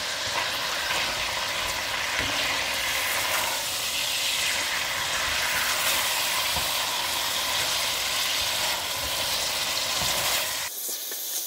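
Meat and sliced onions sizzling steadily in hot oil in a Kukmara cast aluminium kazan as the onions are fried toward golden, with faint scrapes and ticks of a spatula stirring them.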